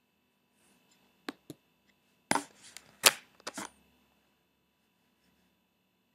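Clicking and tapping at a computer: two sharp single clicks about a second in, then a louder cluster of clicks and knocks around the middle.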